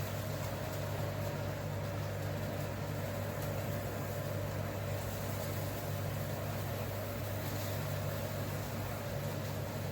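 Steady hum of a running electric kitchen appliance: an even low drone with a fainter steady higher tone and a light hiss.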